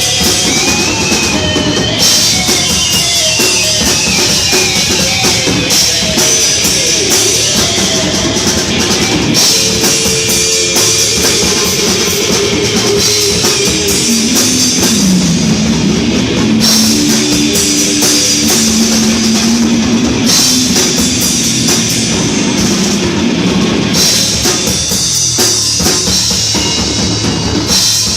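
Heavy metal band playing live: distorted electric guitar and bass over fast, dense drum-kit playing with crashing cymbals. The cymbals drop out briefly several times.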